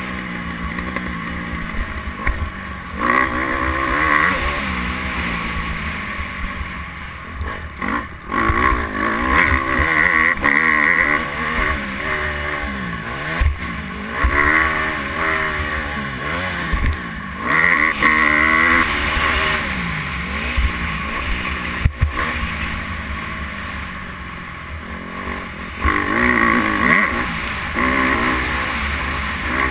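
Dirt bike engine being ridden hard, its pitch rising and falling over and over as the rider revs through the gears and backs off, heard from a helmet-mounted camera.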